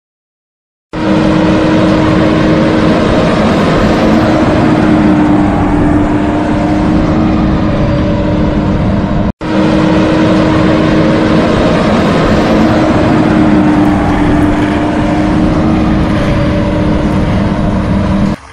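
Loud steady engine sound effect: a vehicle engine running with one held droning tone. It starts about a second in, cuts out for an instant about halfway, then starts again the same and runs on.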